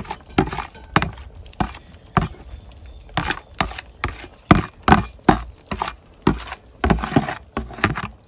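A spoon knocking and scraping against a plastic bowl as mashed bitter ball is emptied into a steel pot of sauce: a string of sharp, irregular knocks, about two a second.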